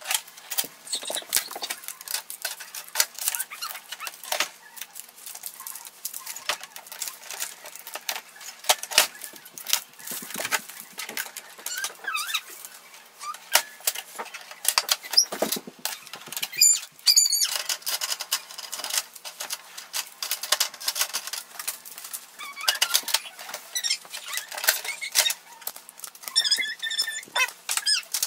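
Packing tape and plastic film crackling and rustling as they are peeled off a new inkjet printer, mixed with clicks and knocks of its plastic trays and feeder being handled. Short squeaks come about halfway through and again near the end.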